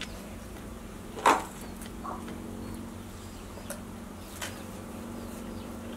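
Crested porcupine gnawing and biting into food: a few short crunches, the loudest about a second in and softer ones after, over a steady low hum.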